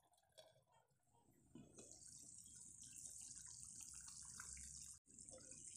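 Fish curry bubbling in a pan on medium heat: a steady fizzing hiss with small pops that starts suddenly about one and a half seconds in, with a momentary dropout near the end.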